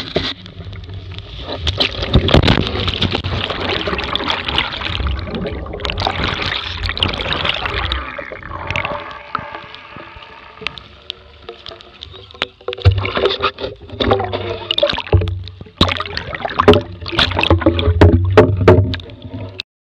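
Water splashing, sloshing and gurgling around a Laser dinghy in a wipeout as the camera dips under the surface, with many sharp knocks throughout. The sound cuts off suddenly near the end.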